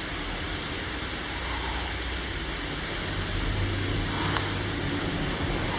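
A man snoring with his mouth open, a low rumbling snore that grows louder about three seconds in, over a steady hiss.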